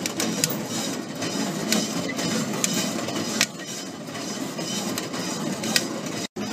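Home-built propane-fired coffee roaster running: coffee beans tumbling and rattling in its rotating steel drum over the gas burner, with scattered sharp clicks, while the brass sample trier is slid out of the drum and back in.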